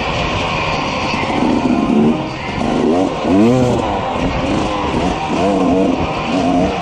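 KTM 300 XC two-stroke dirt bike engine revving up and down under changing throttle, with quick rises and falls in pitch about three seconds in and again near the end, over a steady rushing noise.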